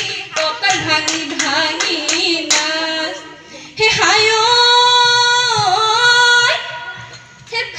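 Women singing a Jeng Bihu song to steady hand clapping; a little past halfway the clapping stops and a single woman's voice holds one long high note for about two and a half seconds, dipping briefly in pitch, before it fades.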